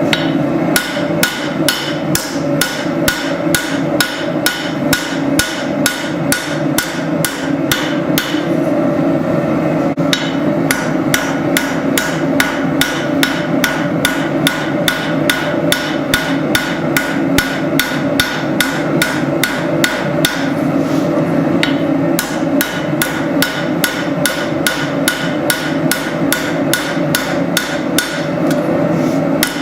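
Hand hammer striking hot spring steel on an anvil in a steady rhythm of about two to three blows a second, drawing out a tanto blade, with two short breaks. A steady low roar runs underneath.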